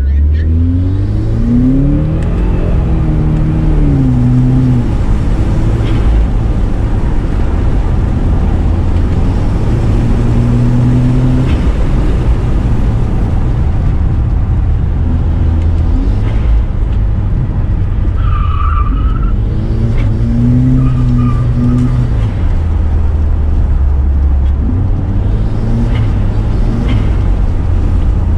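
Subaru WRX's turbocharged flat-four engine, with its CVT, heard from inside the cabin as the car pulls away and is driven hard around a track. The revs climb and fall again and again through the corners, over a heavy low rumble, and a short tyre squeal comes about two-thirds of the way through.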